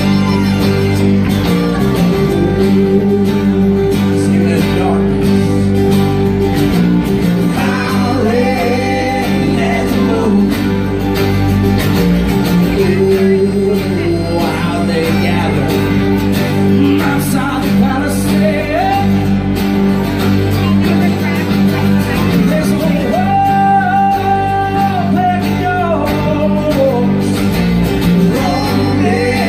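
Live band music: strummed acoustic guitar and other string instruments with a sung vocal melody, in a folk-rock style.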